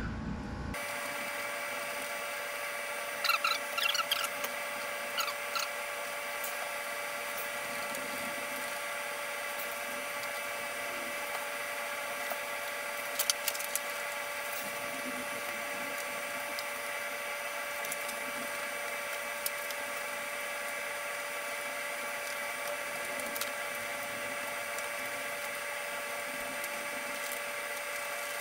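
A steady hum made of several high tones, with a few scattered clicks and taps of hand tools and plastic panel fasteners as motorcycle bodywork is tightened and the light wiring is routed.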